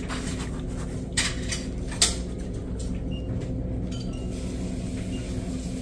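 A few sharp clinks and knocks of small hard objects, the loudest about two seconds in, over a steady low hum.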